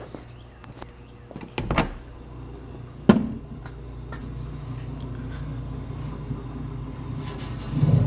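Door of a 1930s General Electric Monitor Top refrigerator being unlatched and pulled open: a few sharp latch clicks a little over a second and a half in, then one loud thunk about three seconds in. Underneath is the steady low hum of the refrigerator's compressor running.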